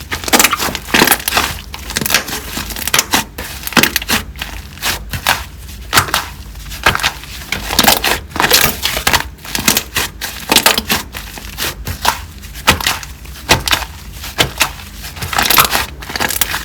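Slime being squeezed, pressed and folded by hand, giving dense clicking and crackling pops in irregular clusters.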